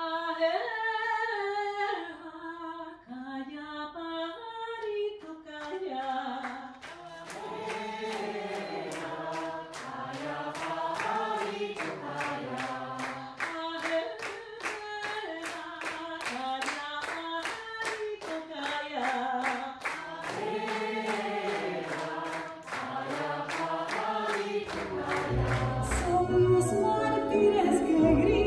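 Unaccompanied group singing: one voice carries the melody at first, then more voices, some lower, join about six seconds in, with steady clapping keeping the beat. Near the end it switches abruptly to a louder passage of music with deep low notes.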